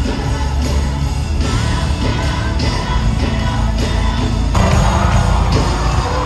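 Live gospel worship music: singing over a band with a heavy bass. About four and a half seconds in, the music grows fuller and louder.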